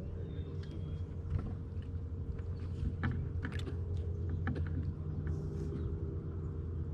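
A steady low mechanical hum with a scattered run of light clicks and ticks around the middle.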